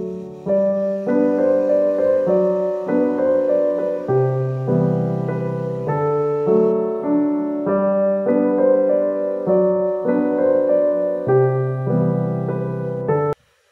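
Background piano music: a gentle melody of held notes and chords that cuts off abruptly near the end.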